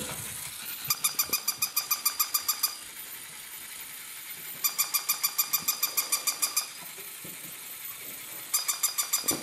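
Battery-powered plush toy chirping: three runs of rapid, evenly spaced high electronic beeps, about eight a second, each run about two seconds long with pauses between.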